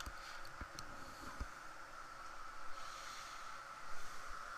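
Faint handling of soldering-kit parts: a few light clicks and knocks in the first second and a half, and a short rustle about three seconds in, over a steady faint whine.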